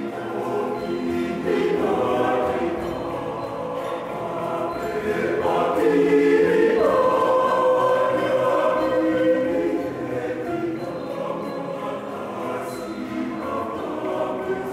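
Mixed choir of men's and women's voices singing in harmony with sustained chords, swelling loudest midway through.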